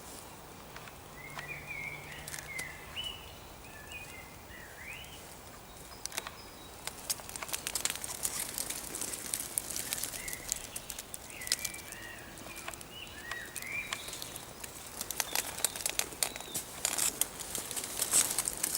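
A woodland songbird singing two short warbling phrases several seconds apart, over crackling and rustling of leaves and twigs that grows denser and louder toward the end.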